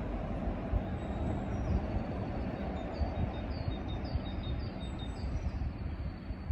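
Steady low rumbling outdoor background noise, with a small bird's short, high chirps repeating from about a second and a half in.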